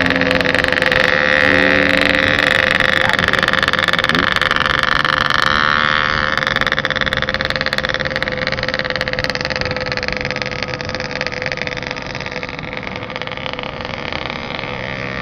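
Motorcycle engine running at road speed with a steady note, mixed with the rush of wind and road noise heard from the riding bike itself; it eases slightly after about six seconds.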